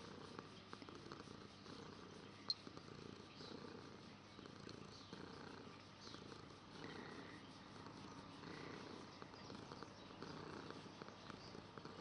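Domestic cat purring softly and steadily while its chin is scratched. One sharp click sounds about two and a half seconds in.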